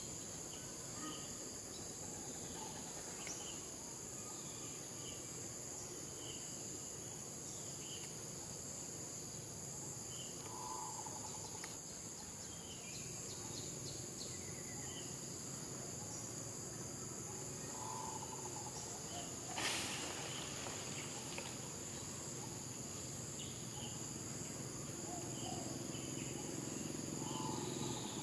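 Steady insect chorus of high, continuous buzzing tones, with scattered short chirps. A single sharp snap about two-thirds of the way through.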